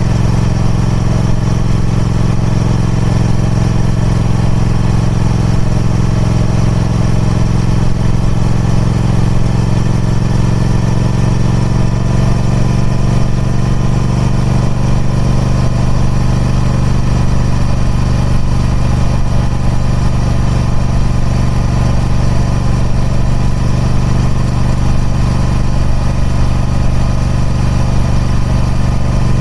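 Triumph Speed Twin 1200's parallel-twin engine running at a steady, unchanging speed through its stock exhaust.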